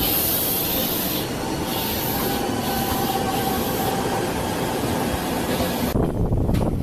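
Electric multiple-unit commuter train passing close by: a steady rush of wheels on rail with a faint high whine. About six seconds in the sound changes to a lower rumble with a few clacks as another train approaches.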